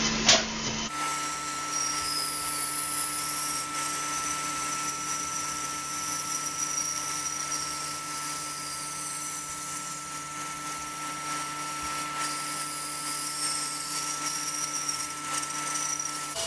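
Startrite 401E bandsaw running steadily while cutting a circle in a glued-up wooden blank: a constant hum with a high whine over it.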